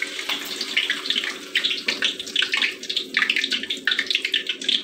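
Batter-coated mung bean ball deep-frying in hot oil in a wok, just dropped in: a steady sizzle with dense crackling pops.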